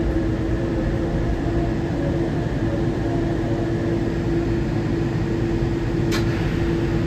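Cabin noise inside a Newark AirTrain monorail car as it runs into the station: a steady running rumble with a constant hum. A single knock comes about six seconds in.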